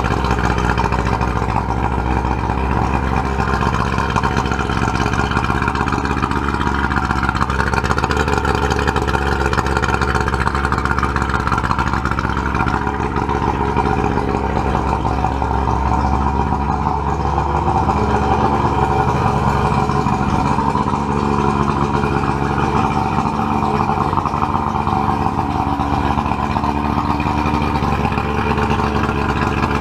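Old Johnson two-stroke outboard motor idling steadily on its trailer, run out of the water with a garden hose feeding its cooling intake.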